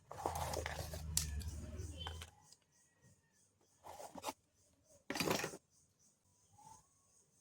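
Scissors snipping and packaging rustling, in a longer stretch at the start and then two short bursts with quiet gaps between.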